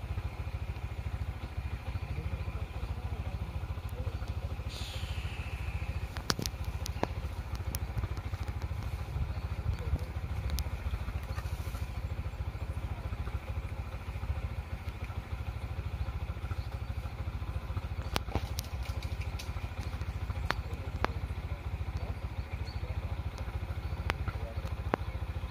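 A vehicle engine idling: a steady low rumble, with a few scattered clicks and a brief falling whine about five seconds in.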